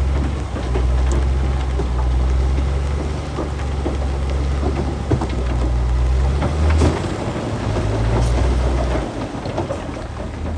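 Heavy diesel earthmoving machine running with a steady low drone, over a continuous crackle and clatter of stone fill being pushed or tipped, with a few sharper knocks. The engine note drops about nine seconds in.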